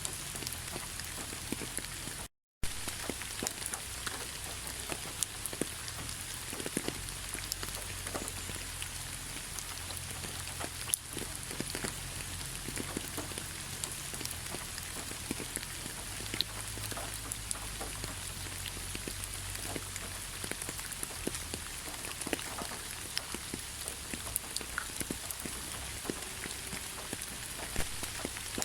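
Heavy rain falling: a steady hiss with many separate drop hits. The sound cuts out completely for a fraction of a second about two seconds in.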